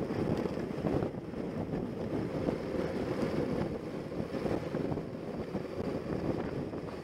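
Wind rushing and buffeting over the microphone of a motorcycle-mounted camera at riding speed, with the motorcycle's engine running under the steady rush.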